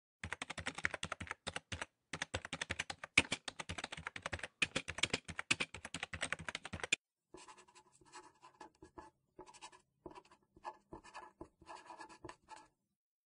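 Typing on a computer keyboard, a fast run of key clicks for about seven seconds. After a brief pause comes a quieter scratching of a pen writing on paper.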